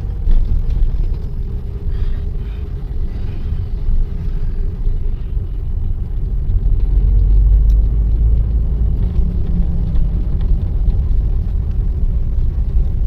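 Car driving, heard from inside the cabin: a steady low engine and road rumble that grows louder about six seconds in.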